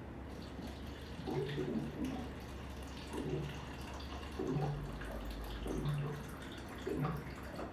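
Water sloshing and slapping in short pulses, about one every second, over a steady low engine rumble.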